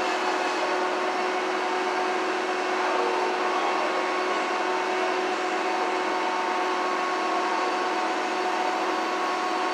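Steady rushing noise with a constant hum in it, unchanging throughout.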